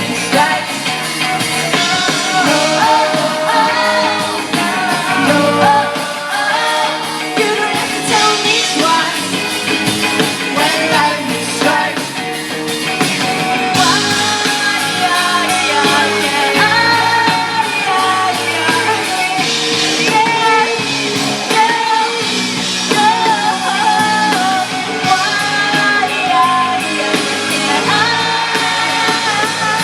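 Live pop-rock band playing loud amplified music with singing.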